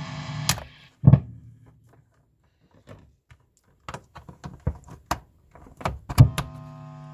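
Mains hum and buzz from the amplification system, caused by sharing the computer's power socket, cuts off with a click as the amp's plug is pulled. It is followed by a thump, a few seconds of scattered knocks and clicks from the plug being handled, and a loud thump as the plug goes into another socket. The hum then comes back fainter.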